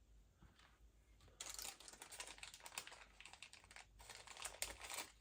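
Rummaging through small spare parts, a dense clatter and rustle of small pieces that starts about a second and a half in, breaks off briefly near four seconds, then carries on.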